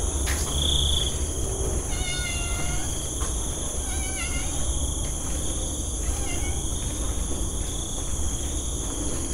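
A domestic cat meowing a few times, short calls that rise and fall in pitch, over a steady high chirring of insects.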